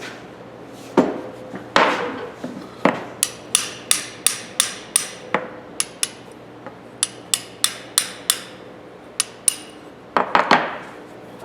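Hammer tapping on the steel parts of a ratchet: a few heavier knocks, then runs of quick, light metallic taps, about three a second, stopping and starting.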